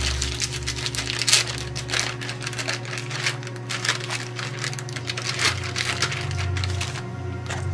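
Plastic bag of brown sugar being handled and pulled open, crinkling and rustling in quick irregular crackles.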